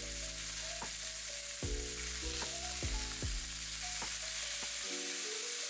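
Pieces of pork sizzling steadily as they brown in hot bacon grease in a deep skillet, with soft background music.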